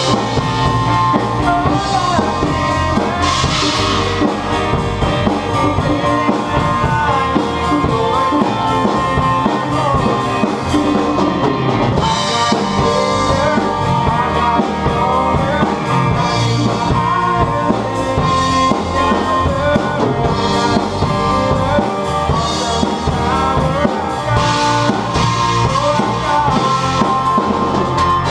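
A band playing a song led by a drum kit, with a steady beat on bass drum and snare plus rimshots, under pitched instruments such as guitar, bass and keyboard.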